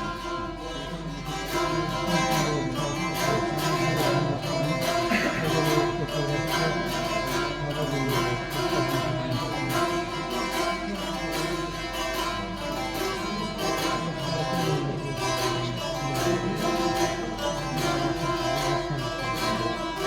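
Saz, the long-necked Azerbaijani lute, played as a solo instrumental with quick, densely plucked notes.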